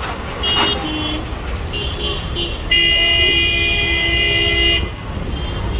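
Vehicle horns in congested street traffic: a few short toots, then one loud horn blast held for about two seconds starting nearly three seconds in, over the low rumble of traffic.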